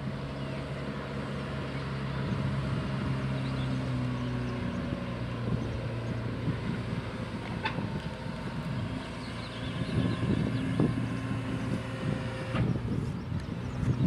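Manitou MLT 840 telehandler's 115 hp diesel engine running steadily as the machine drives across the field, its note dropping slightly a few seconds in.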